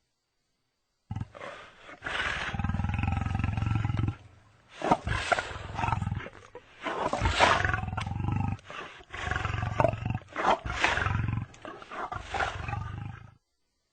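Lion roaring: a long roar lasting a couple of seconds, then a run of shorter, deep roars in quick succession, ending abruptly.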